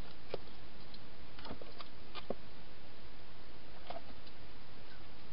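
Scattered small clicks and taps of a wild hedgehog moving about inside a plastic feeding box, a handful in the first four seconds, over a steady background hiss.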